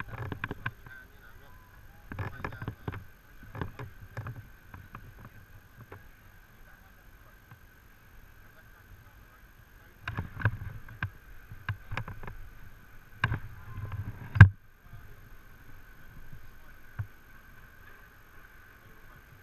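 Irregular bursts of rustling, scraping and clicking from a climbing harness, rope and metal carabiners moving right against a body-worn camera as the abseiler shifts into position on the ledge. The bursts end in one loud, sharp knock about fourteen seconds in.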